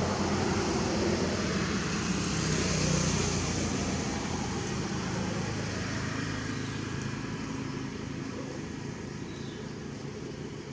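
Steady rumble of a motor vehicle's engine with road noise, loudest in the first few seconds and slowly fading away.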